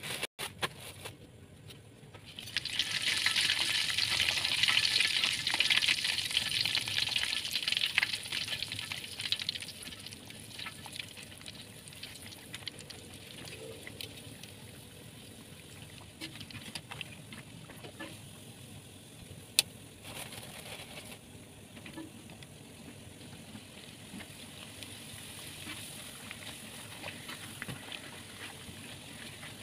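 Opak crackers frying in hot oil: a loud sizzle starts a couple of seconds in and eases after about eight seconds to a steady, softer sizzle. There is a single sharp click about two-thirds of the way through.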